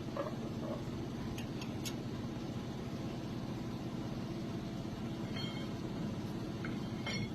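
Steady low hum of running shop machinery, with a few faint light clicks about one and a half to two seconds in and again near the end.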